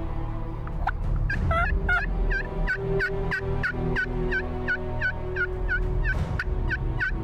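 Turkey yelping: a long, even run of yelps, about three a second, beginning about a second in.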